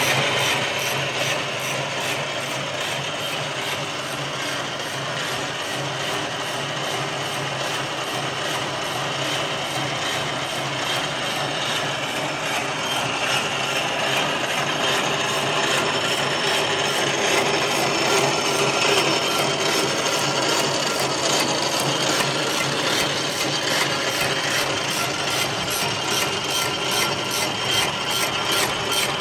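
CS-C barbed wire making machine running, its gears and wire-twisting head making a steady mechanical clatter as it twists line wire and wraps barbs.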